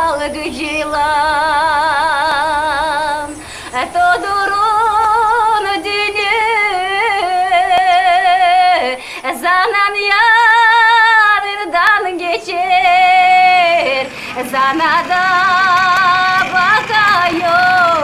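A woman singing a slow Russian folk-style song in long held notes with a wide vibrato, pausing briefly for breath between phrases.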